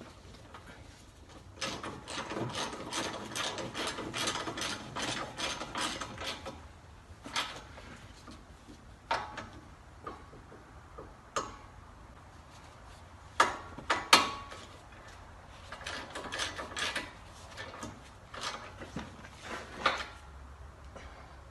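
Hand ratchet wrench clicking in quick runs as bolts are turned in, with scattered single clicks and a couple of louder knocks midway.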